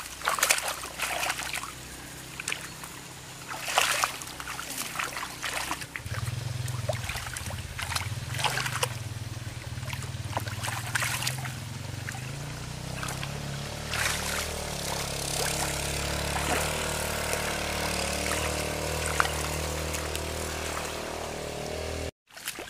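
Hands splashing and sloshing in shallow muddy rice-paddy water, in a run of short splashes. From about six seconds in, a low, steady engine hum sounds underneath.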